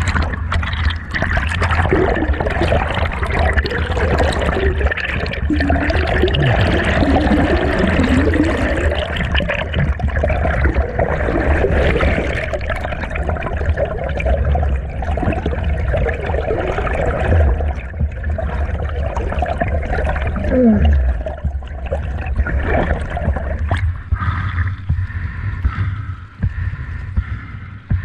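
Stream water rushing and gurgling, heard through a camera held underwater among the stream-bed stones, with a heavy low rumble. The sound thins and changes about four seconds before the end.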